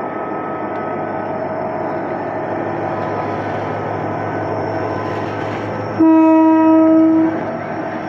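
EMD GT22CW-2 diesel-electric locomotive pulling away with its train, its engine a steady drone. About six seconds in, its horn sounds one blast of a little over a second, the loudest sound here.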